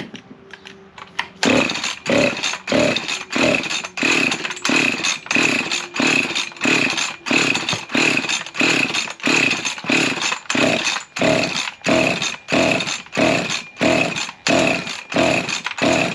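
Husqvarna 353 chainsaw being pull-started over and over, the recoil starter and cranking engine giving a quick whirr with each yank, just under two pulls a second, without the engine catching: the owner puts it down to the kill switch being left in the off position.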